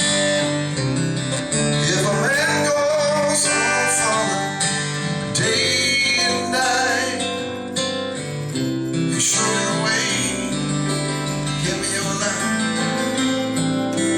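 Live blues music: strummed guitar over a steady bass line, with a wavering melody line sounding above it every few seconds.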